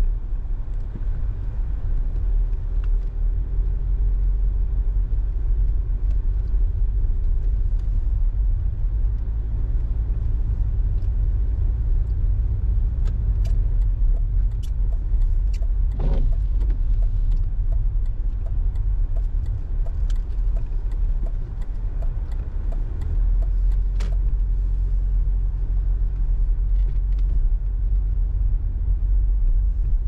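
Car driving on snow-covered roads: a steady low rumble of engine and tyres. Scattered light clicks in the middle, with a sharper knock about halfway through and another a little later.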